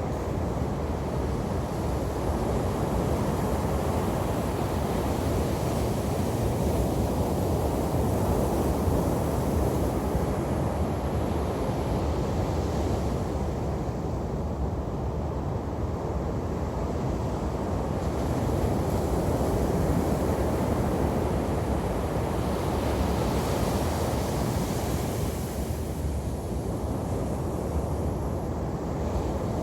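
Ocean waves breaking and washing on a beach: a steady rushing surf with slow swells in loudness as larger waves come in.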